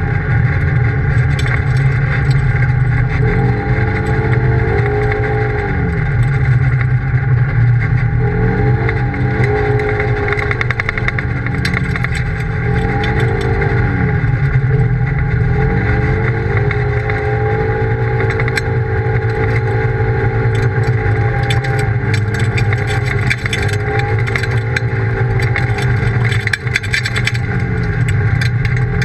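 Polaris RZR side-by-side's engine heard from on board while driving, its pitch climbing and dropping again and again as the throttle is opened and eased, holding high for several seconds in the middle.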